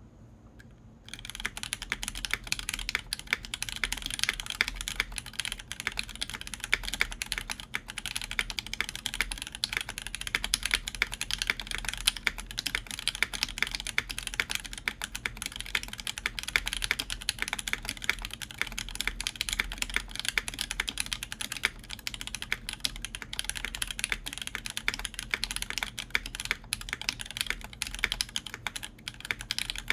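Typing on a Tech Bear TB-65F mechanical keyboard in its bottom-mount configuration, with lubed JWK Alpaca linear switches, a full copper plate and GMK Cosmos keycaps. A steady, fast run of keystrokes begins about a second in, with a faint low desk rumble underneath.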